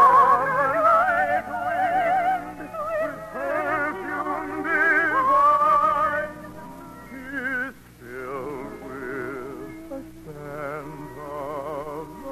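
Operetta music: singing with heavy vibrato over an orchestra, in long held notes. It turns softer about halfway through.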